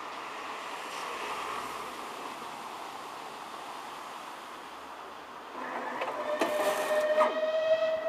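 Steam train hauled by West Country class locomotives pulling away at a steady moderate level. About five and a half seconds in it grows louder, with a few sharp knocks and a steady high tone that carries on past the end.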